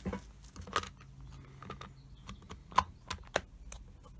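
Irregular clicks and light knocks of plastic parts as the housing of a red industrial plug is pushed together by hand and worked with a screwdriver, the sharpest click about three seconds in.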